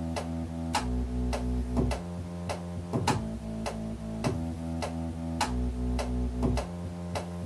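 Electronic music from a software synthesizer played on a MIDI keyboard: held bass notes that change every second or so under a beat of sharp percussive hits, about two a second.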